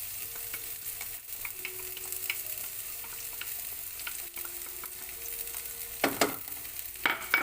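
Chopped garlic sizzling steadily in hot olive oil in a pan as it is stirred, with small clicks throughout and two louder knocks near the end.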